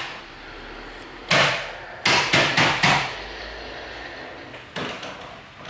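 Sharp clacks of hard plastic spacebar parts being handled and knocked against a wooden desk. One loud clack about a second and a half in, four quick ones around the two-to-three-second mark, and a lighter one near the end.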